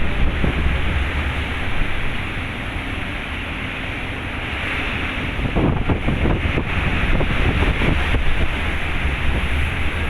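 Rough sea: waves surging, with wind buffeting the microphone and a steady low rumble. A louder surge comes about six seconds in.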